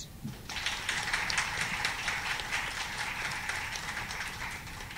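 Audience applauding: dense clapping that starts about half a second in and dies away near the end, on an old cassette-tape recording.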